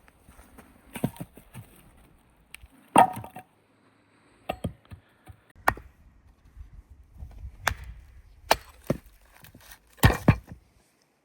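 Dry wood being chopped or broken: a series of sharp, irregular knocks and cracks, the loudest about three seconds in and near the end.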